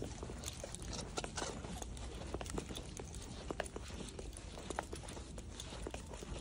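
Footsteps on a hard tile floor: a walking dog's claws clicking alongside a person's shoe steps, many irregular sharp clicks over a steady low background hum.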